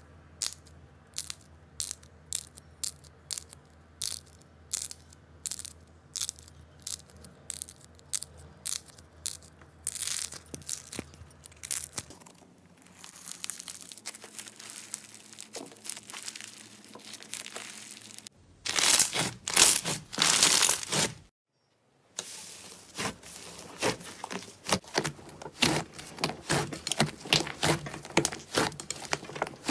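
Slime being pressed and squeezed by hand: sharp pops and clicks, about two or three a second, then denser crunchy crackling from foam-bead slime. A loud crackling stretch follows, and after a short silent break there are quick pops and crackles as a large soft slime is kneaded.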